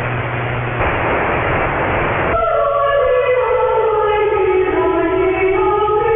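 AM radio audio, relayed over a VLF link and demodulated by software: hiss of static between stations for about two and a half seconds, then a sudden switch to a station playing music with a slowly falling and rising melody.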